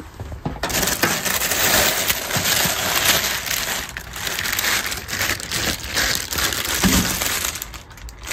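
Clear plastic packaging bags crinkling and rustling as bagged accessories are pulled out of a window air conditioner's compartment. The crackling starts about half a second in and dies down just before the end.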